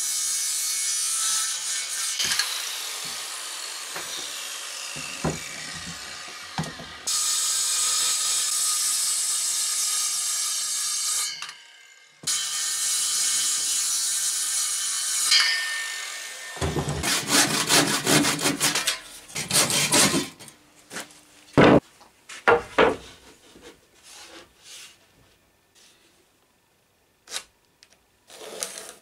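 Saw cutting through oak timber in long, steady stretches, then a run of rapid rasping strokes, followed by a few sharp wooden knocks.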